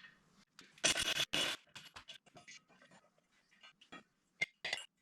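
Hand tools and metal parts being handled while working on a side-by-side's CVT clutch. There are two short scraping rushes about a second in, then scattered light scrapes and clicks, with two sharper clicks near the end.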